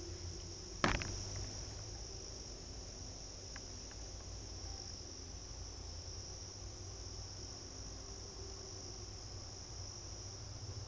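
Steady, high-pitched chorus of insects such as crickets, with one sharp knock about a second in.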